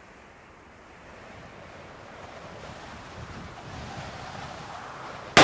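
Wind blowing steadily, slowly growing louder, then a single sudden loud hit right at the end.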